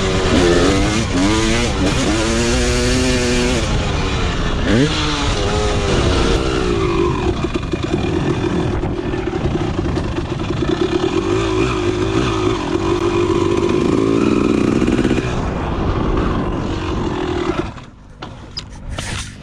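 1999 Honda CR250R's two-stroke single-cylinder engine revving hard under riding load, its pitch climbing and dropping through the gears, then holding a steadier high drone. About two seconds before the end the revs fall away sharply as the bike pulls up on a flat tyre.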